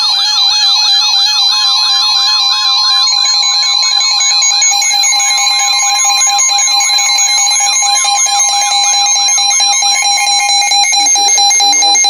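Several Midland NOAA weather alert radios sounding their alarms together: a fast warbling siren that sweeps up and down about three times a second over steady high beeping tones. Under it runs the steady 1050 Hz NWS warning alarm tone, which stops near the end as a broadcast voice begins.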